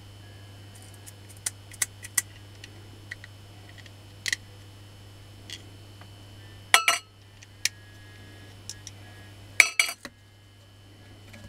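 Light clicks and clinks of a carbon brush holder and small parts being handled and fitted against a washing-machine motor's frame, with two louder rattling clatters about seven and ten seconds in.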